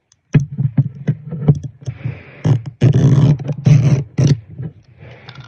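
Loud, irregular crackly rustles and thumps from a fluffy purple toy right against the phone's microphone. They start about a third of a second in and come thickest around the middle.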